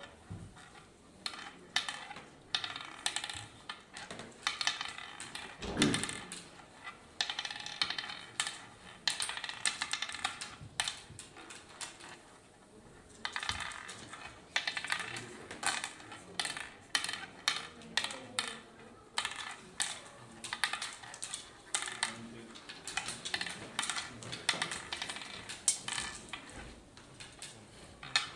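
Oware seeds clicking and rattling into the hollow pits of a wooden oware board as they are sown one by one and scooped up in handfuls, in quick irregular runs of clicks.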